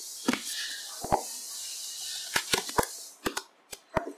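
Cardboard box being handled and opened by hand: a series of sharp knocks and taps on the cardboard, several in quick succession past the middle, over a steady hiss.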